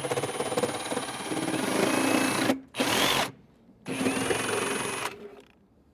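A handheld power tool cutting a notch into a 4-inch drain pipe, running in three bursts: a long cut of about two and a half seconds, a brief one, then a cut of about a second.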